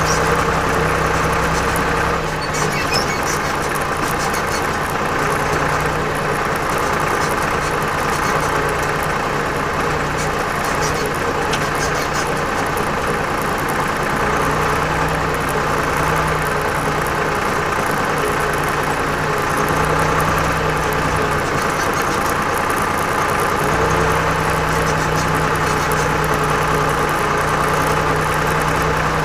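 Torpedo TD 55 tractor's diesel engine running steadily as the tractor drives in four-wheel drive through wet snow. Its low engine note drops about two seconds in and comes back strongly near the end.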